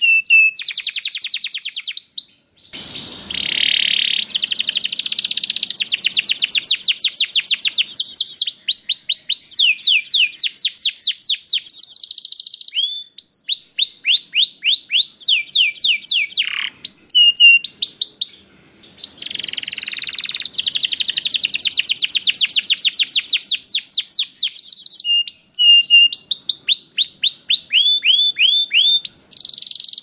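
Domestic canary singing a long run of fast trills. The phrases are rapid strings of repeated downward-slurred whistled notes whose speed changes from phrase to phrase, with a few buzzy stretches and several brief pauses.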